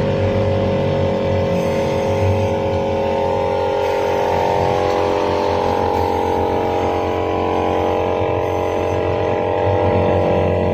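Steady mechanical hum of an air compressor running, used to blow the engine's cylinders dry after the carbon-cleaner flush, with background music over it.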